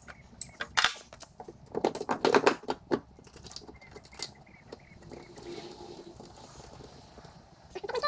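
A run of sharp metallic clicks and clinks from handling bolts, tools and the shifter assembly while it is being bolted down, thickest about two to three seconds in, then a few seconds of faint rustling.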